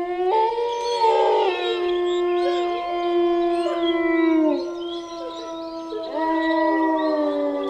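Wolves howling: several long, overlapping howls that sink in pitch as they end, with a fresh round of howls starting about six seconds in.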